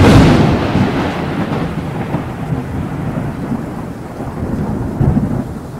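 Thunder sound effect laid under a logo intro: a sudden loud clap at the start, then a long rolling rumble with rain-like hiss that slowly fades, swelling again about five seconds in.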